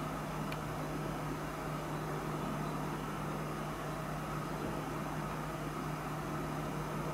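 Steady mechanical hum: an even hiss with a constant low drone, unchanging throughout.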